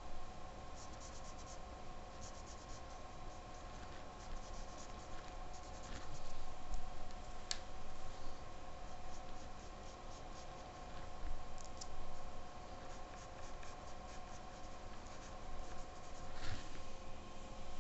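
Soft pastel stick scratching across drawing paper in short, uneven strokes, over a faint steady hum.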